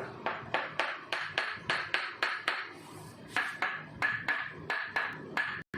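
A quick, regular run of sharp taps, about four a second, many leaving a brief ringing note.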